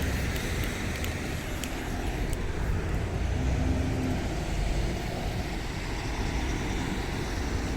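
Road traffic passing: a steady noise of car engines and tyres on the road, swelling a little midway.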